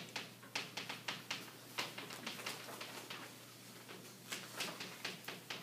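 Chalk tapping and scratching on a chalkboard as words are written: a quick, irregular run of faint taps, with a pause of about a second past the middle.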